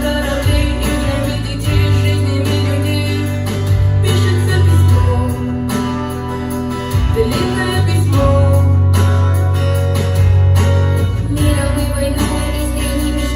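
Instrumental break of a pop song's backing track, with sustained deep bass notes and held chords that change every couple of seconds and no lead vocal.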